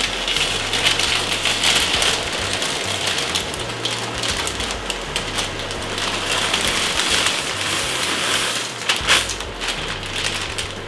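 Steady crackling hiss of stovetop cooking: a pot of water coming to a boil, with a pan sizzling. A brief clatter about nine seconds in.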